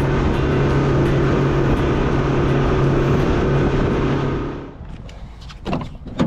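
Motorboat engine running at steady speed with a steady hum and the rush of water and wind, cutting off about four and a half seconds in; two short knocks follow near the end.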